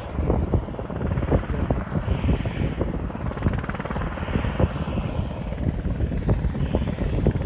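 UH-60 Black Hawk helicopter coming in to land: a rapid rotor chop over a heavy low rumble, growing louder just after the start, with a higher hiss that swells every couple of seconds.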